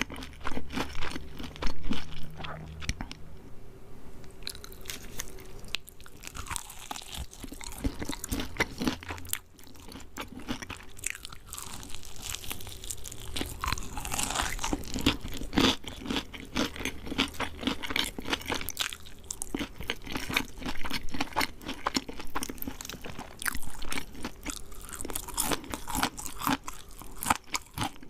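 Close-miked chewing and crunching of crispy KFC fried chicken coating, with bites and wet mouth sounds.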